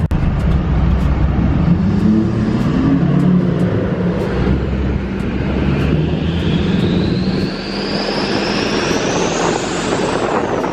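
Duramax diesel pickup engine running under throttle. A turbocharger whistle climbs steadily in pitch over several seconds and drops away near the end.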